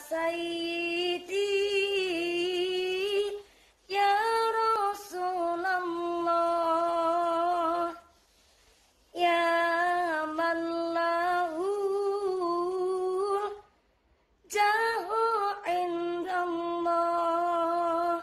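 A woman singing an Islamic devotional song (sholawat) alone, with no accompaniment. She sings four long, ornamented phrases with short pauses between them.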